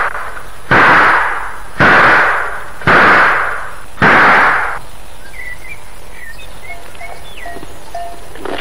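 A pistol firing a run of shots about a second apart, each with a short fading tail, the last about four seconds in. Faint birds chirping follow.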